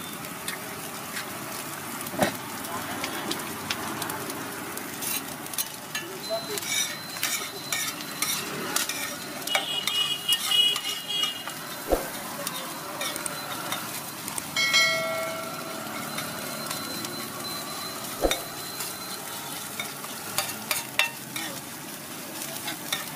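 Chopped egg mixture sizzling on a flat iron griddle while a metal spatula scrapes, chops and taps across the iron in quick irregular strokes. There are two sharper knocks about twelve and eighteen seconds in.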